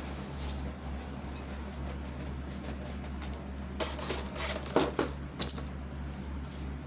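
Packing peanuts and packaging being handled: a quick cluster of sharp rustles and clicks about four to five and a half seconds in, over a steady low hum.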